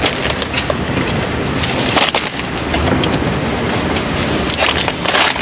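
Wind buffeting the camera microphone, a steady rumbling rush. A few brief knocks and rustles come from groceries being handled at the car's open cargo area.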